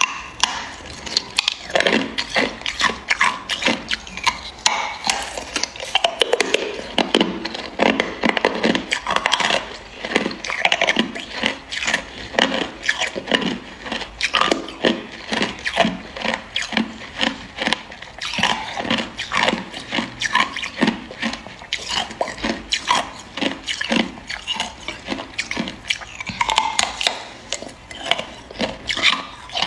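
Hard clear ice being bitten and crunched between the teeth: a continuous, irregular run of sharp cracks and crunches.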